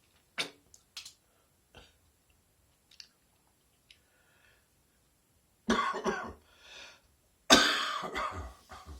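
A person's chesty cough: a few short throat sounds in the first three seconds, then two longer coughing fits just under six seconds in and about a second and a half later, the second the loudest.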